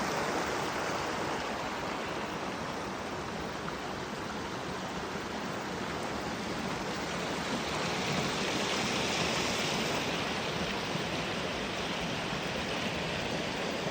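A steady, even rushing noise that holds at one level throughout, with no distinct events.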